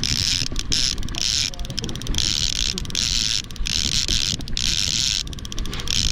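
Level-wind trolling reel clicking in quick ratcheting runs, each about half a second to a second long with brief breaks between them, as its handle is cranked to reel in a hooked king salmon. Wind rumble on the microphone underneath.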